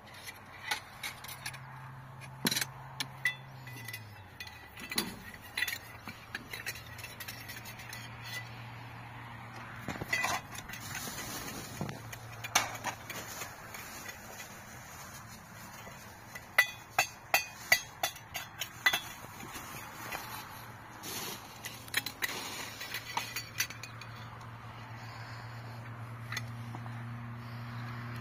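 Dishes and metal utensils clinking and knocking in irregular sharp strikes, some in quick runs, over a low steady hum.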